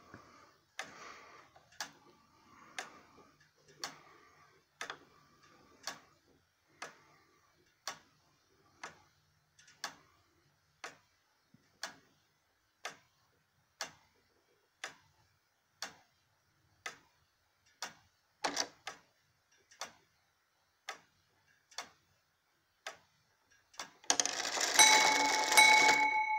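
The wooden movement of a circa-1790 Gideon Roberts tall case clock ticking steadily, about one tick a second. Near the end the clock starts striking the hour on its bell, which rings on.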